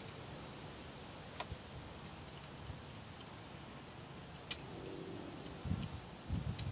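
Insects droning steadily at a high pitch, with two faint sharp clicks and some low bumps near the end.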